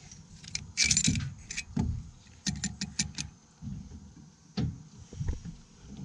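Metallic clanks and clinks as a fuel nozzle is pulled from a combine's diesel filler neck. A clattering cluster comes about a second in, and a quick run of sharp clicks follows about two and a half to three seconds in.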